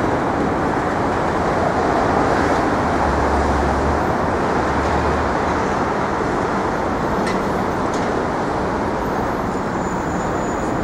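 Steady street traffic noise from a busy city intersection, an unbroken wash of passing vehicles. A low hum joins for about two seconds a few seconds in.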